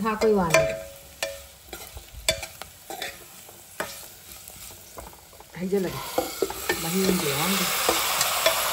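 A metal ladle stirring and scraping chopped herbs, chillies and spices in an aluminium pot, with sharp clicks of metal on metal. About halfway through, a steady sizzle of frying rises and holds.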